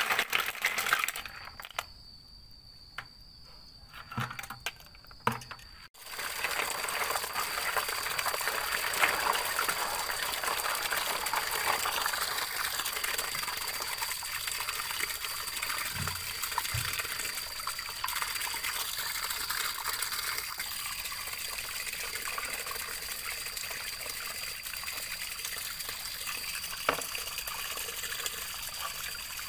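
Water running and trickling steadily, starting abruptly about six seconds in; before that, a quieter stretch with a few soft knocks.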